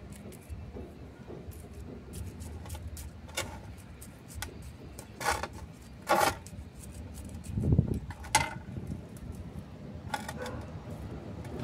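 Handling sounds of potting a succulent: a wooden stick scraping and poking gritty substrate into a small ceramic pot, with several sharper clicks from about three seconds in and a dull thump around eight seconds.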